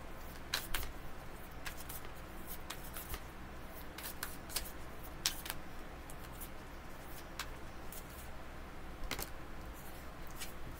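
Tarot cards being shuffled and handled by hand: irregular short flicks and snaps of the cards, over a steady low hum.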